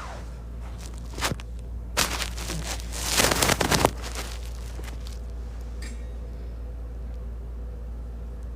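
Handling noises from a small tire pump's parts and packaging: a sharp click about a second in, then short bursts of rustling and rattling, loudest for about a second near the middle, over a low steady hum.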